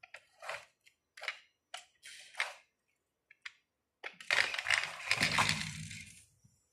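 Toy car rolling down a cardboard ramp with a rough clay surface and onto a hard floor: a rattling, rumbling roll starting about four seconds in and fading out after about two seconds. Before it, a few short scrapes as the car is handled at the top of the ramp.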